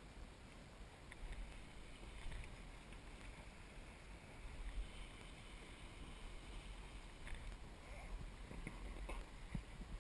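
Faint kayak paddling: the paddle blade dipping and dripping water beside the hull, over a low steady rumble, with a few light knocks or splashes in the second half.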